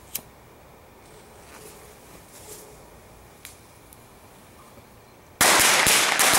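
A bundle of seven Bunker Buster firecrackers taped together on linked fuses going off about five seconds in: a sudden, loud, rapid string of overlapping bangs, the rest set off by the first. Before it there are only faint scattered clicks.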